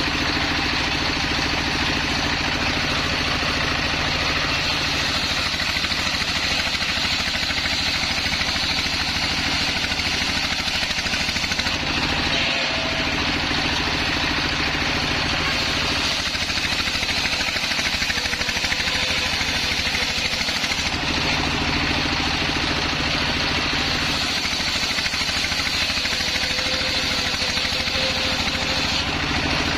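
Stationary single-cylinder diesel engine running steadily, belt-driving a circular saw bench, with the saw's hiss above the engine note as waru logs are ripped into planks.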